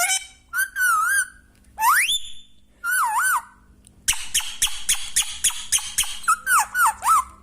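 Pet parrot whistling and calling: wavering whistled notes, one whistle sliding sharply upward about two seconds in, then a quick run of sharp repeated calls about four seconds in, followed by more warbling whistles.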